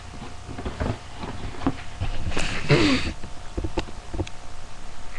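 Handling noises from unpacking a toy blaster and its parts: scattered knocks and clicks, with a louder rustle about two and a half seconds in.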